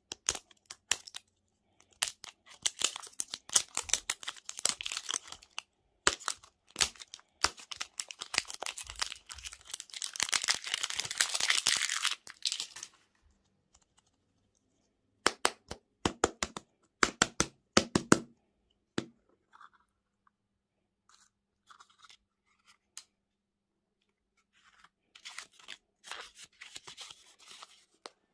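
Close-up crinkling and tearing of plastic candy and toy packaging being opened, in a long dense burst; then a run of sharp clicks and snaps about halfway through, and a softer rustle near the end.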